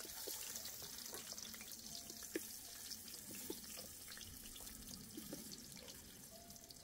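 Knife slicing raw potatoes on a wooden cutting board, with scattered soft knocks, and potato slices being put into a pot of water with small splashes and drips. A faint steady hiss runs underneath.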